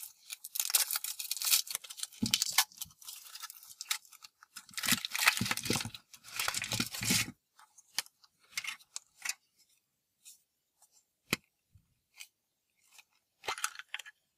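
Foil wrapper of a Kinder Surprise chocolate egg crinkling and tearing as it is peeled off and the chocolate shell is broken open. About seven seconds in this gives way to a few scattered sharp clicks as the yellow plastic toy capsule is handled and popped open.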